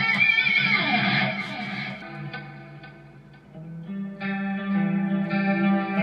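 Squier electric guitar played through an M-Vave MK-300 multi-effects preset: a run of notes with a falling bend about a second in dies away, then held notes ring out from about four seconds in.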